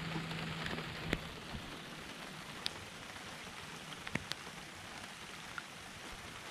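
Light drizzle falling: a steady hiss with a few sharp ticks of single drops. A low steady hum stops about a second in.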